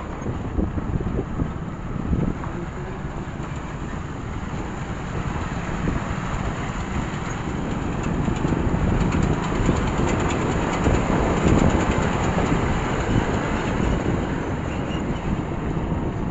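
Steady rumble of travel on a rough road with wind on the microphone. A heavily loaded multi-axle lorry's engine and tyres grow louder through the middle as it is passed close alongside.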